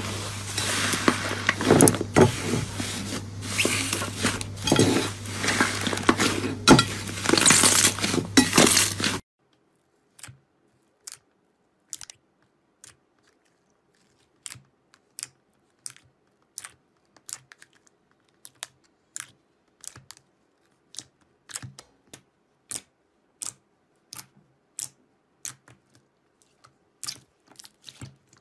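Slime squeezed and pulled by hand: a dense, loud crackling for about the first nine seconds, then it cuts off. Afterwards come sparse sharp pops and clicks, about one or two a second, as a thicker slime is poked and pressed and trapped air pops out of it.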